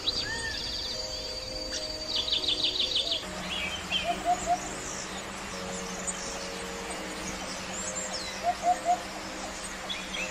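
Several birds chirping and calling over a steady hiss of forest background, including a rapid run of chirps about two seconds in and short three-note calls twice later. The background changes abruptly about three seconds in.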